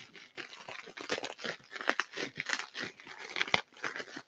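Bubble wrap being pulled apart and crinkled by hand, a run of quick, irregular plastic rustles and crackles.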